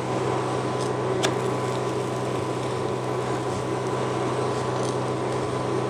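Steady hum and fan whir of a portable electric hob heating a frying pan, with one light click about a second in.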